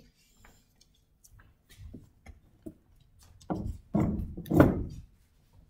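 Footsteps and light knocks on a wooden floor, scattered and faint at first, then three louder thuds in the second half, the last the loudest.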